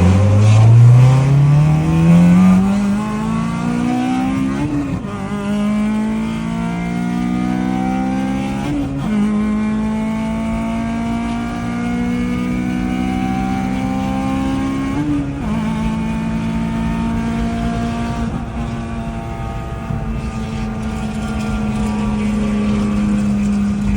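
Stock Honda K20A 2.0-litre four-cylinder engine accelerating through the gears. The revs climb and drop back at upshifts about five, nine and fifteen seconds in, then hold steady.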